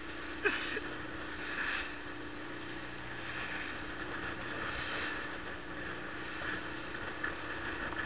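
Small motorboat's engine running steadily under way, with water rushing and splashing against the hull in choppy sea; the splashing swells and eases as the boat rides the waves.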